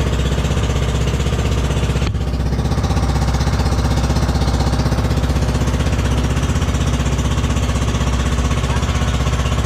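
Outrigger boat's engine running steadily, a loud, fast, even pulse heard from on board.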